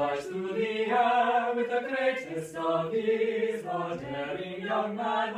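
A choir singing together, several voices holding notes and moving to a new chord about once a second.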